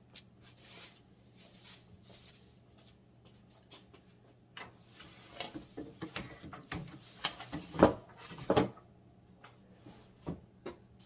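Wooden planks knocking and clattering as they are handled and set into place, with plastic sheeting rustling; the loudest knocks come about eight seconds in.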